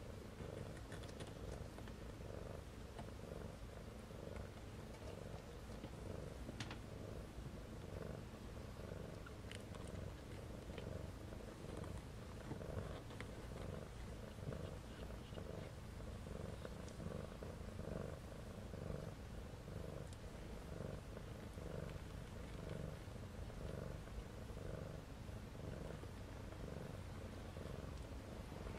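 Mother cat purring steadily while her kittens nurse, the purr swelling and easing in an even pulsing rhythm, with a few faint clicks.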